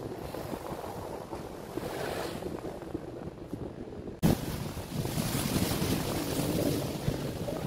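Steady rushing background noise with a few faint light clicks; about four seconds in it cuts abruptly to a louder rush.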